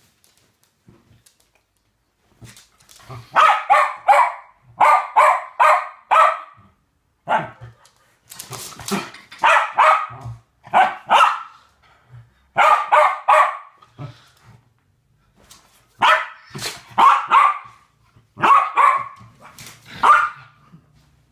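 West Highland White Terrier barking in play: short, sharp barks in quick runs of three or four, starting a couple of seconds in and repeating again and again.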